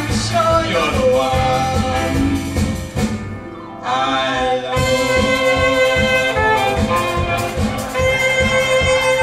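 Instrumental passage of a stage-musical song played by the band with strings over a steady pulse. It drops back briefly about three seconds in, then returns with long held notes.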